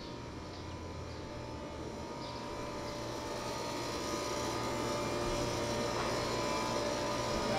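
A train approaching on the railway line: a steady engine drone with a low hum, growing gradually louder.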